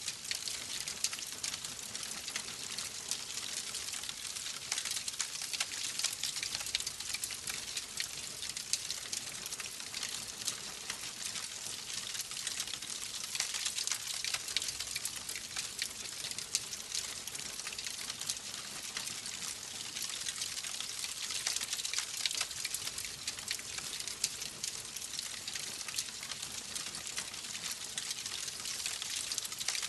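Wood fire crackling steadily: a dense run of small pops and snaps over a soft hiss.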